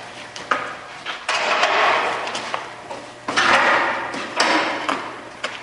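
Rubber tires being dropped into the steel chamber of a hydraulic tire baler: sharp knocks as they land, two of them, about a second in and a little after three seconds, followed by about a second of scraping rush as the tire settles against the others.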